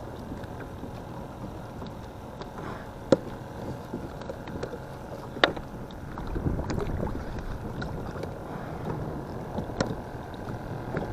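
Steady low rumble of wind and water, broken by three sharp clicks or knocks, the loudest about three seconds in.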